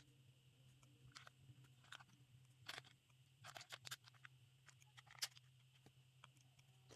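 Faint, scattered clicks and short crackles of small plastic miniature pieces and packaging being handled, the most marked a little under 3 s in, between about 3.5 and 4 s, and just past 5 s, over a low steady hum.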